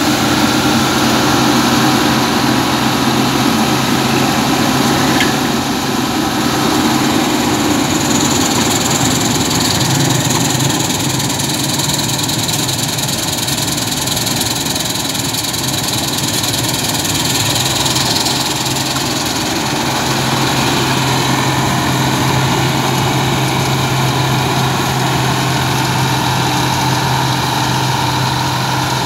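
New Holland 8070 combine harvester's diesel engine running steadily under load while it cuts and threshes, a constant low hum that eases slightly between about ten and twenty seconds in.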